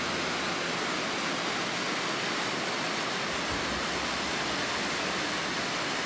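Large waterfall, about 100 m high and 30 m wide, pouring steadily down a rock face: an even, unbroken rushing of falling water.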